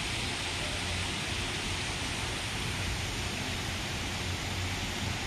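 Steady hiss of splashing water from the park's ornamental fountain pools, over a low uneven rumble.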